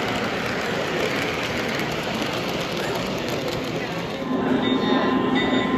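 O gauge model freight cars rolling past on three-rail track, a steady rumble of wheels. About four seconds in it gets louder and a steady tone at several pitches sets in.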